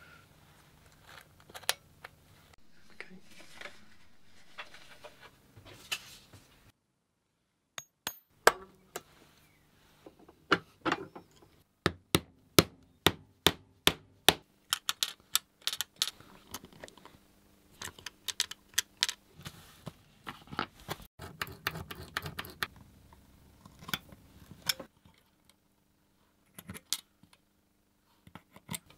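Small handwork on a concertina's action: many sharp clicks and taps of metal levers, springs and tweezers against the wooden action board, after a few seconds of rubbing and scraping of parts being handled.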